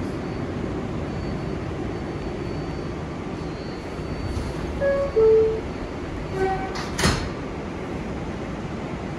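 R188 subway car standing at the platform with a steady hum. About five seconds in, the two-note door chime sounds, stepping down in pitch, and about two seconds later the sliding doors shut with a thump.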